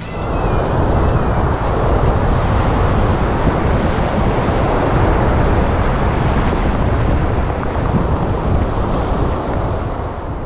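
Sea surf washing onto a stony beach, with strong wind buffeting the microphone into a loud, steady rumbling rush; it eases off at the very end.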